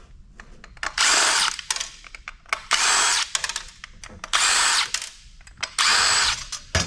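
Cordless power driver spinning out the screws that hold a computer hard drive, run in four short bursts about a second and a half apart, with small clicks of metal parts between them.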